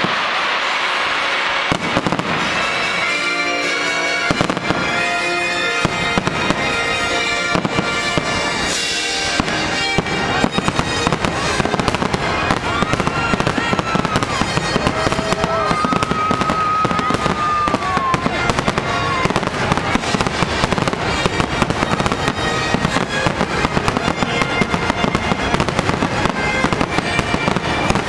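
Fireworks display: aerial shells booming and crackling in quick succession, the bursts growing denser and more continuous after about ten seconds, like a finale. Show music plays underneath, clearest in the first few seconds.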